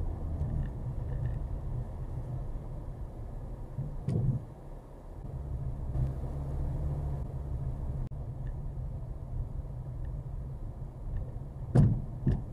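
Renault Duster heard from a dashcam inside the cabin, a steady low engine and road rumble as it pulls away from a standstill and climbs over a bridge on a rough dirt track. A knock comes about four seconds in, and two loud thumps near the end.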